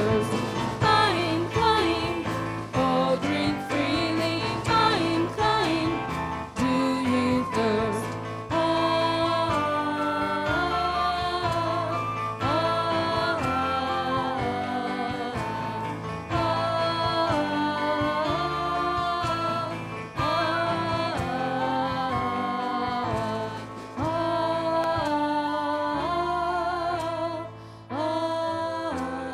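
Worship song at a synagogue service: singing over instrumental accompaniment, brisk and rhythmic for the first several seconds, then in long held phrases.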